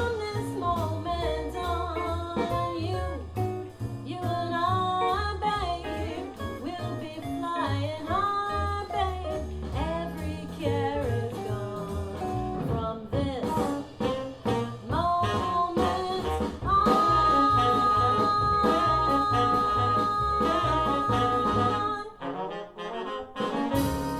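Swing jazz band music played back on Monitor Audio Bronze 2 bookshelf speakers: a horn-like lead melody over a steady walking bass and drums, a long held note about two-thirds of the way in that cuts off suddenly, then one final chord hit near the end as the song closes.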